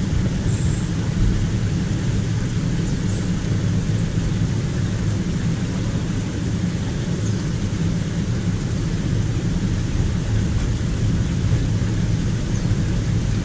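Water running steadily through a narrow stone-walled drainage ditch: an even low rumble with a hiss above it.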